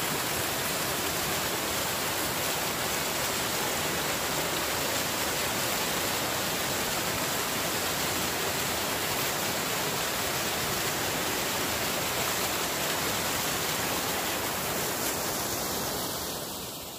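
Small mountain waterfall, water rushing steadily down a rocky cascade. It fades out near the end.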